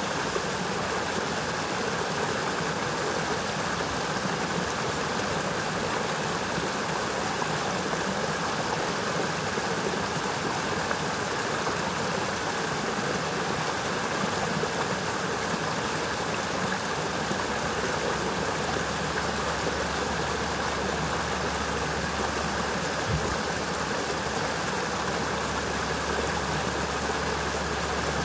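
Forest brook rushing steadily as cold water tumbles downhill. A faint low rumble joins about two-thirds of the way through.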